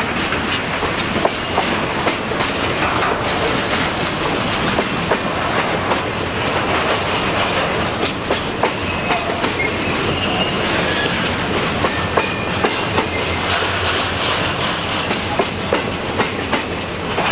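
Freight train of empty log cars rolling past, its steel wheels clacking steadily over the rail joints in a run of sharp clicks.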